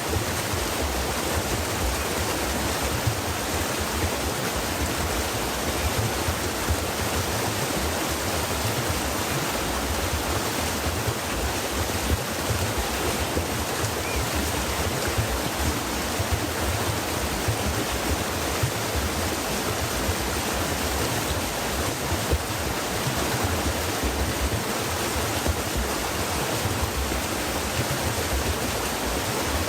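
Stream water running and splashing steadily over stones, an even rushing with small quick splashes.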